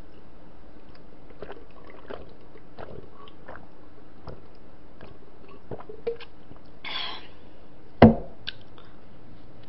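Drinking water from a plastic cup: small wet sipping and swallowing clicks, a short breath out about seven seconds in, then a single sharp knock as the cup is set down on the table about a second later.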